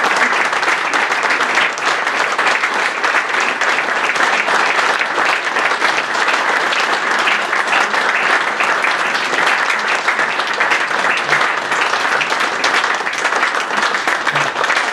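Audience applauding steadily, a dense, continuous clatter of many hands clapping.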